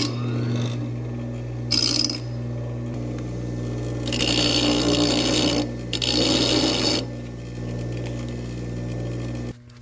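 Bench grinder running with a steady hum while a small steel brake-mount tab is pressed against the wheel in four short grinding passes, the longest about four seconds in.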